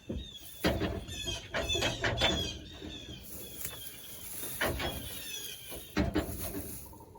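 Farm animals squealing and squawking in many short, high calls that fall in pitch, with knocks and scuffling among them.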